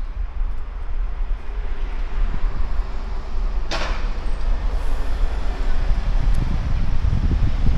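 Outdoor town-street ambience: a steady deep rumble of wind on the microphone and road traffic. A brief sharp hiss cuts through almost four seconds in.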